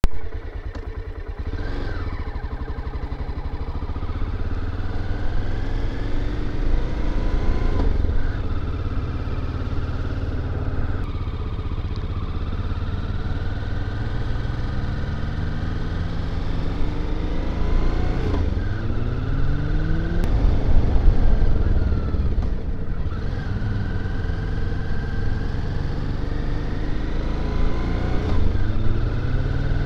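Motorcycle engine running under way, its pitch rising and dropping back again and again as the rider accelerates and changes gear on a winding climb, over a heavy low rumble.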